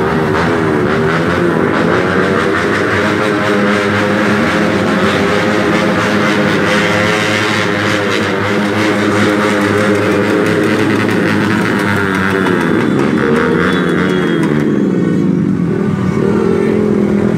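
Motorbike engines in slow, dense street traffic. The nearest engine's pitch dips and rises every few seconds as it eases off and speeds up again, over the steady din of many other motorbikes.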